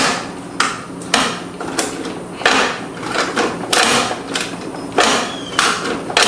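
Lawn mower's operator-presence bail lever and flywheel-brake cable linkage being worked back and forth, giving a sharp clack with a brief rattle about every half second or so. The cable is overstretched and stiff in its housing and is being loosened after a shot of WD-40.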